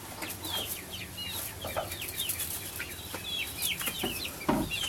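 A flock of chickens calling: many short, high chirps overlapping one another, with a louder, lower call about four and a half seconds in.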